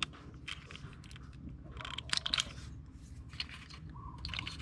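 Small flat-tip screwdriver prying the locking tab of a plastic ignition-coil connector while the connector is worked off the coil: a scatter of faint plastic clicks and scrapes, busiest about two seconds in.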